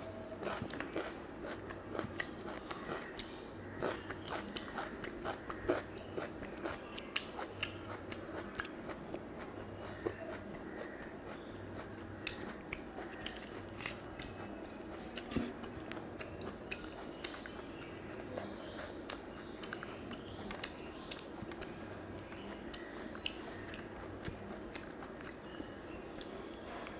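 Close-miked chewing and mouth sounds of someone eating rice and mutton curry with her fingers: a steady run of small clicks and smacks.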